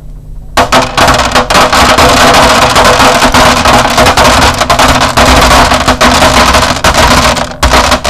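Bits of dry pasta dropped into a plastic container, a loud, dense rattle of many small hits used as foley for a hail and rain storm. It starts about half a second in and stops shortly before the end.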